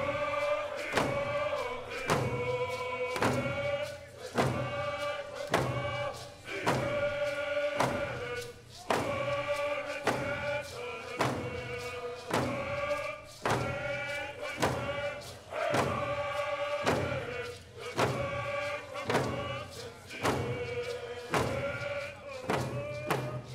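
A group of singers chanting in unison over a steady, even drum beat.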